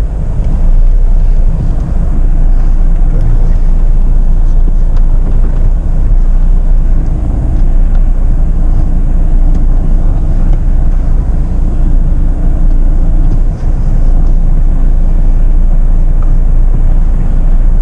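Jeep Meridian SUV crawling over an off-road trail: a steady, heavy low rumble of the vehicle moving. A faint engine hum holds steady through the middle for several seconds.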